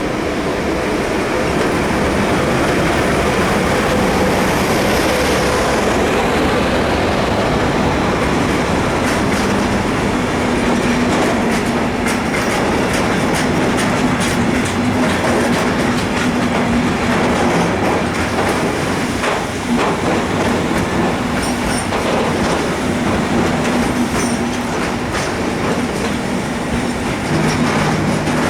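Freight train hauled by an ET42 electric locomotive rolling past at close range: a continuous loud rumble of wagons with a steady hum and rapid clacking of wheels over rail joints, denser in the second half.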